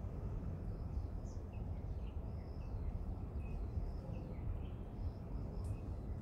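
Outdoor ambience: a steady low rumble with faint, short bird chirps scattered throughout.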